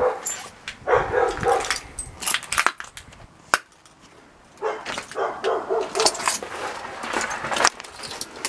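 A dog barking repeatedly in two bouts, about a second in and again from about four and a half seconds in, with scattered sharp crunches from footsteps over debris.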